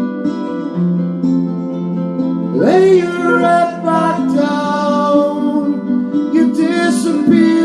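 Guitar-backed song with sustained notes. About two and a half seconds in, a voice slides up into a held sung line without clear words.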